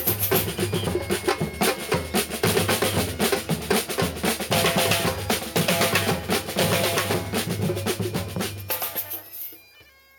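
Drum band playing a fast rhythm on snare and bass drums, with snare rolls, fading out near the end.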